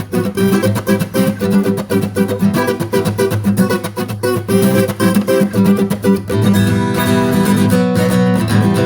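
Acoustic guitar strummed in a quick, choppy ska rhythm, changing to fuller held chords about six seconds in.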